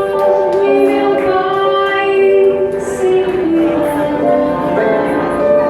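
Live vocal music: singers, with a female voice prominent, holding long notes that move slowly from one pitch to the next.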